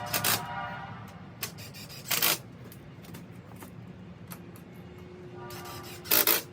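Bosch 18-volt cordless drill driving screws home in three short bursts: one at the start, one about two seconds in and one near the end.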